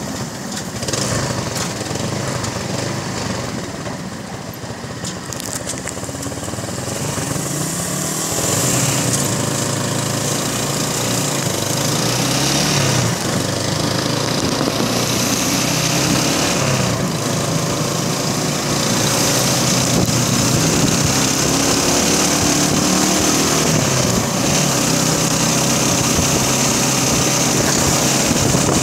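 Small motorcycle engine running at riding speed, its pitch rising and falling as the throttle changes. About eight seconds in, a rushing hiss of wind on the microphone grows louder.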